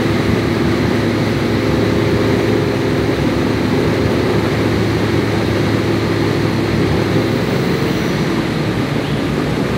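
Four-wheel-drive engine running at steady revs, a constant drone, during the recovery of a vehicle bogged in a mud hole.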